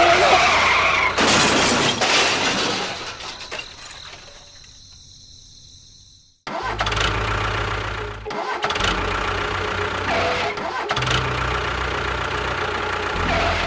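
Music mixed with a vehicle engine sound that fades away, cuts off abruptly about six seconds in, then resumes with a pulsing low running note.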